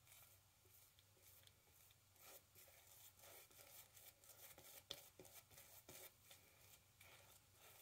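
Faint, quick scratchy strokes of a wet shave against lathered skin, a dozen or more short scrapes in irregular succession.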